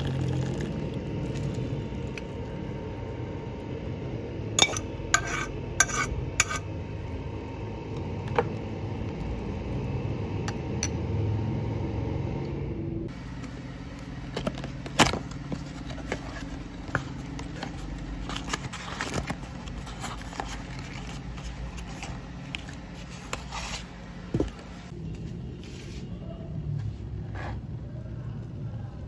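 Kitchen clatter of pans, dishes and utensils knocking and clinking, with a quick run of sharp clicks about five seconds in and scattered knocks through the second half.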